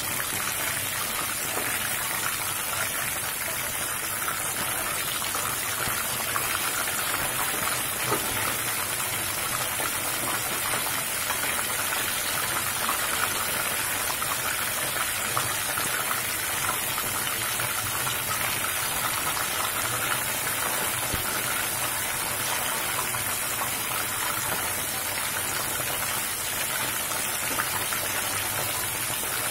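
Batter-coated mushroom pieces deep-frying in hot oil in a kadhai, a steady sizzle throughout.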